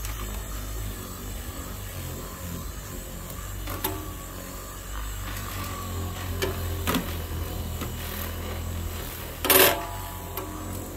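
Handheld electric orbital buffer switched on and running steadily, its foam pad working over the mower's plastic body panels with a low motor hum. One brief, louder noise comes about nine and a half seconds in.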